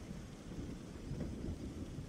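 Thunderstorm: steady rain with a low rumble of thunder underneath.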